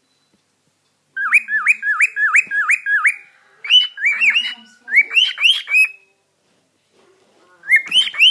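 Male cockatiel singing: phrases of quick, rising whistled notes, about four a second, broken by short pauses, with a fresh phrase starting near the end. It is a cockatiel's affection song, sung to something he likes.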